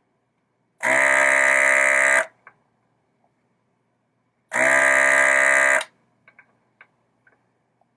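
Electric desoldering tool's vacuum pump buzzing in two bursts of about a second and a half each, sucking molten solder off the board's header pins, with a few small clicks after each burst.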